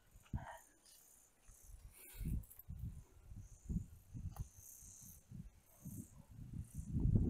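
Faint insects chirping high up, coming and going, over irregular low thumps and rumbling on the microphone that grow loudest about seven seconds in.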